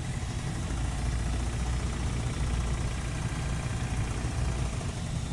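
Toyota 7A-FE inline-four engine running as the car drives, a steady low drone. The owner suspects a valve in the third cylinder has lost its keepers (from oil starvation) and knocks, heard when the engine is given throttle.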